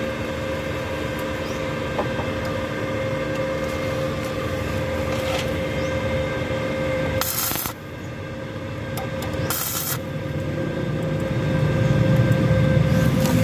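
A steady mechanical hum with several held tones, broken by two short bursts of high hiss about seven and nine and a half seconds in, then growing louder and lower near the end.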